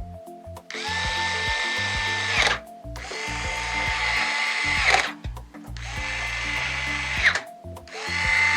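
Electric screwdriver driving the power supply's mounting screws into a PC case: four runs of steady motor whine, each a second and a half to two seconds long with a brief chirp as it stops, the last starting near the end.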